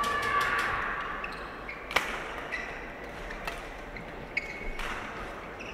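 Badminton doubles rally: sharp racket strikes on the shuttlecock, the loudest about two seconds in and several lighter ones after, with short squeaks of court shoes on the floor.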